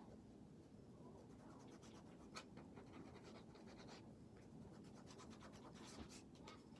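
Faint scratching of a white crayon rubbed over a collaged paper journal page in short, repeated strokes.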